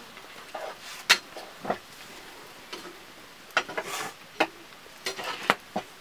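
Metal ladle stirring in a metal cooking pot over a wood fire, giving scattered sharp clicks and scrapes, about seven in all.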